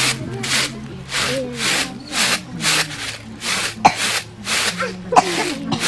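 Uncooked rice being winnowed in a round woven tray: each toss sends the grains swishing across the weave, a rhythmic rasp about two to three times a second.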